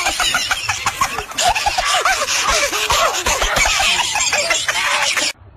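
Many people laughing and shrieking at once, a dense crowd of voices, cut off abruptly near the end.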